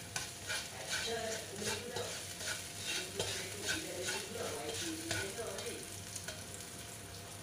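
Egg noodles frying in a spoonful of oil in a non-stick wok on a high gas flame. The sizzle is broken by stirring and tossing strokes about twice a second, which die down after about five seconds.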